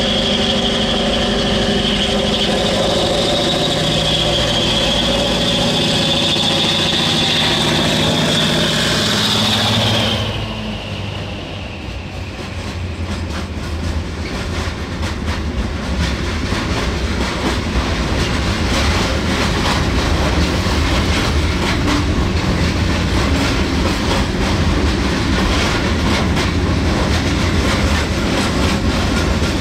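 An EMD-built diesel freight locomotive drives past with its engine running and a high steady whine. About ten seconds in it is gone and a long train of heavy wagons loaded with copper ore concentrate rolls by with a low rumble and steady wheel clatter over the rail joints.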